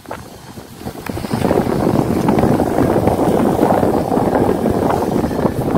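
Wind buffeting the microphone: a steady rumbling rush, softer for the first second and then loud.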